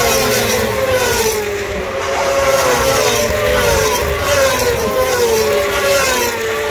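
British Superbike racing motorcycles passing at speed. The engine note slides down in pitch and jumps back up over and over, about once a second, as the bikes change gear.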